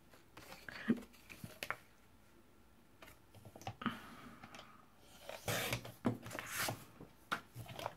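Paper being positioned and cut on a Fiskars rail paper trimmer: a few light clicks and taps as the sheet is lined up, then rustling swishes of the blade running through the paper, loudest in the second half.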